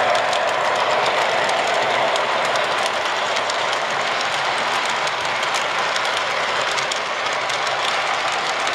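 O-gauge model train running past on its track: a steady rolling rumble of the wheels with fine, rapid clicking over the rail joints, and a whine that fades after about two seconds as the locomotive goes by and the lit passenger cars follow.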